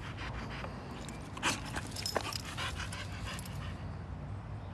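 Boxer dog panting fast with her tongue out, winded from chasing a ball. There is a brief sharp knock about a second and a half in.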